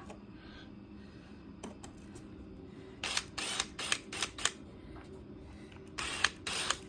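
Power drill run in short bursts, boring small pilot holes through a wooden angle bead for temporary screws. A cluster of brief bursts comes about three seconds in, and more start near the end.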